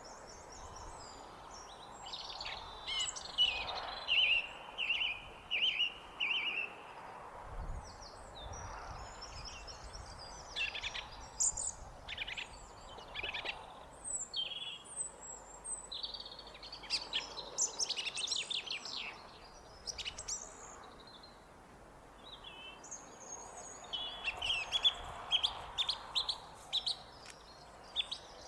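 Song thrush singing varied short phrases, some notes repeated several times in a row, over a faint steady background hum.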